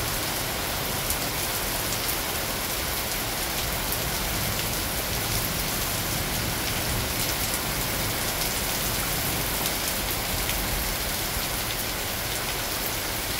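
Thunderstorm rain falling steadily on garden foliage and grass: an even hiss full of small drop ticks.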